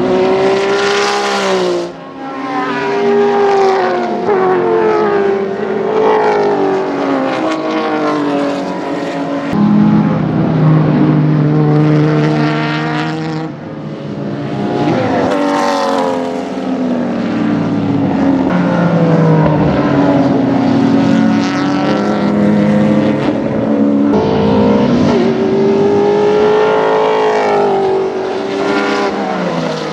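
Group A and Group C touring car racing engines at full throttle on track, several cars passing one after another. The engine pitch climbs and drops repeatedly with gear changes and braking.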